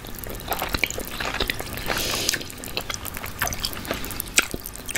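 Close-miked chewing of a bite of barbecue chicken drumstick, mouth closed: a run of small wet mouth clicks and smacks.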